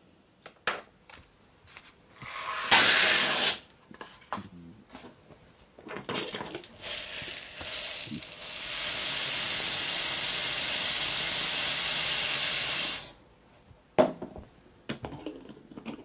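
Objects being handled and set down on a workbench: scattered knocks and clicks, a short loud rattle about three seconds in, and a steady, even rushing hiss lasting about four seconds near the middle.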